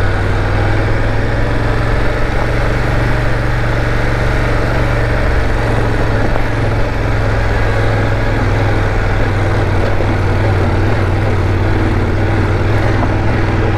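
BMW F 850 GS parallel-twin engine pulling steadily in first gear under load, climbing a steep dirt road at low speed with a passenger aboard.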